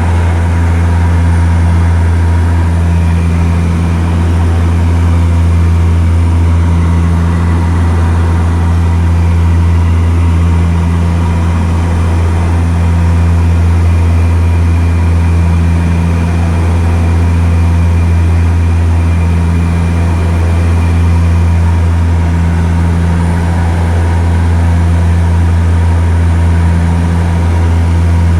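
Loud, steady engine drone: a deep hum with faint higher whining tones above it, unchanging in pitch with only a slow, gentle rise and fall in level.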